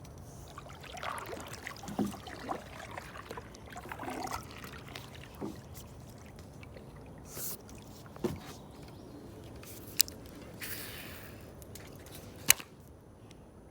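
Water splashing and trickling as a kayak is turned and moved on the water, with two sharp knocks in the second half.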